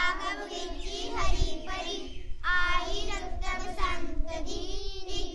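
A child singing a poem as a steady, continuous melody line.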